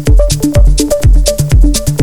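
Electronic dance music with a steady four-on-the-floor kick drum, about two beats a second, a repeating bass line and hi-hats.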